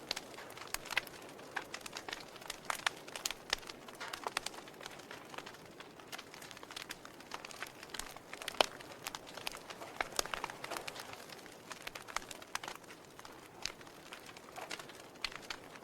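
Wood fire crackling in a fireplace: irregular sharp pops and snaps over a soft hiss of burning, with a louder snap a little past the middle.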